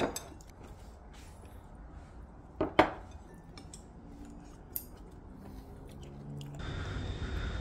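Cutlery clinking against dishes at a meal table: two sharp clinks a moment apart about three seconds in, over quiet room tone. Near the end a louder steady background noise comes in.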